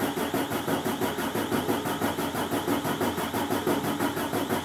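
Starter motor cranking a 24-valve 5.9 Cummins diesel over at a steady, even pulse without the engine firing, while an injector line is cracked open to bleed fuel through. The no-start is later traced to a dirty crankshaft position sensor connector, which left the computer reading zero engine speed.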